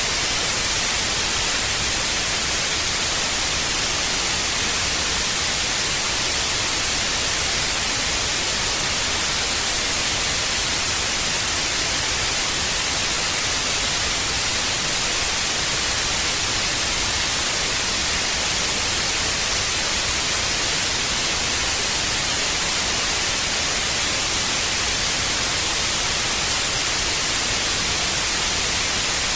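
Old analog TV static: a steady, loud hiss, brightest in the high end, unchanging throughout.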